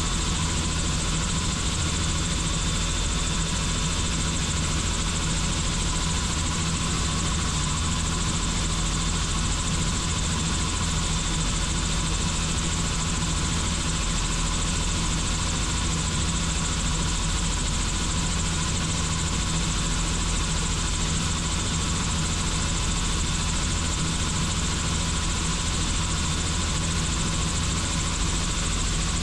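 Helicopter in flight: a steady drone of rotor and engine that holds even throughout, with a faint high tone.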